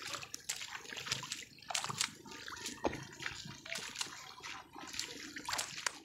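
Irregular splashes and sloshing of water and mud in a flooded rice paddy, from wading through the muck and bundles of rice seedlings being tossed into the water.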